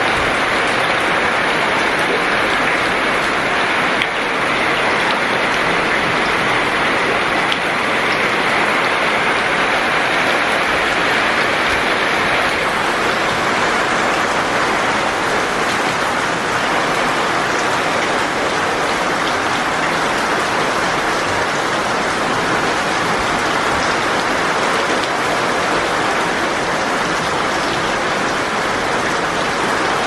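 Steady rain falling on wet pebbles, puddled gravel and paving slabs: an even, unbroken hiss.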